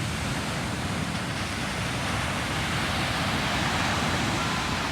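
Ocean surf breaking on a sandy beach: a steady rushing wash that swells a little about three seconds in.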